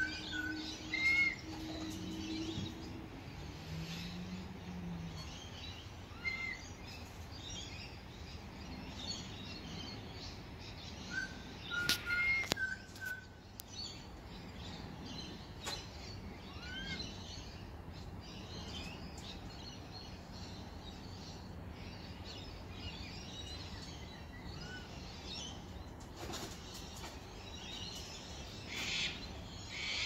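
Wild birds calling in the morning: a constant scatter of high chirps and twitters, with short clear whistles now and then and louder calls near the end.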